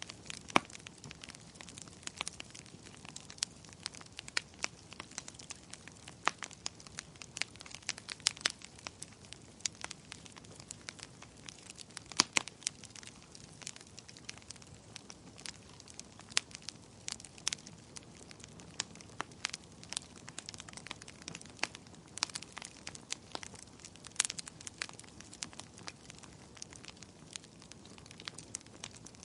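Wood fire crackling: irregular sharp pops and snaps over a faint steady hiss, with a few louder snaps, the strongest about twelve seconds in.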